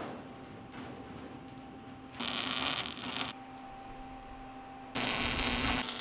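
Arc welding: the welder hums steadily, broken twice by the crackling hiss of the arc, once for about a second starting two seconds in and again from about five seconds in.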